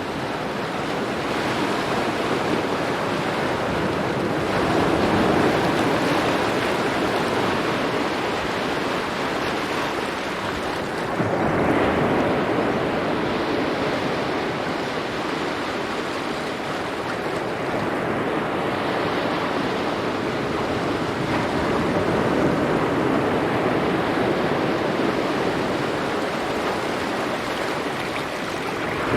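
Sea waves washing onto a rocky beach: a continuous rushing surf that swells louder every several seconds as each wave breaks.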